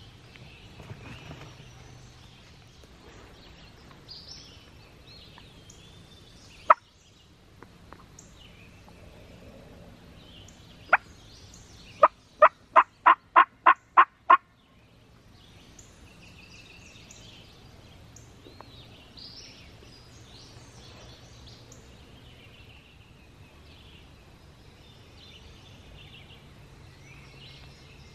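Wild turkey yelping: two single sharp clucks, then a quick run of about eight even yelps lasting a little over two seconds. Songbirds chirp faintly throughout.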